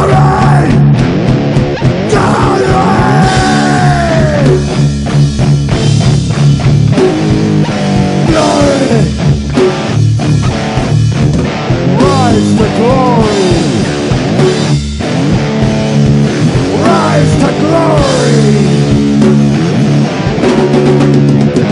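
Loud rock music with electric guitar, drums and bass. A lead line slides and bends in pitch several times, with no singing.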